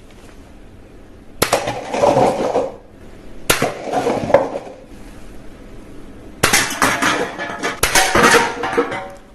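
Hard plastic clattering and rattling in four bursts, each starting with a sharp knock, as toy guns are handled and knocked together.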